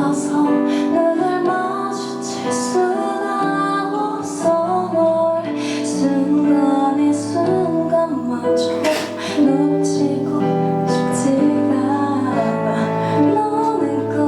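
Live band music: a woman singing a melody over guitar accompaniment.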